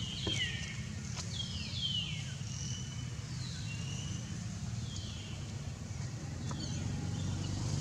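Young long-tailed macaque giving a series of high-pitched squeals that each slide downward, several in quick succession in the first two seconds, then fainter and sparser, typical of a frightened juvenile. A steady low hum runs underneath.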